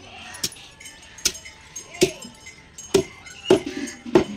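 A large knife chopping through a big catla fish into steaks on a wooden log block: about six sharp chops, roughly one every 0.7 seconds.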